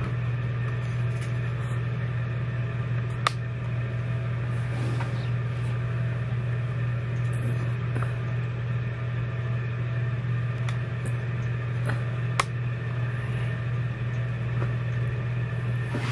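A steady mechanical hum from a running fan or appliance, with two sharp clicks, one a few seconds in and another later on.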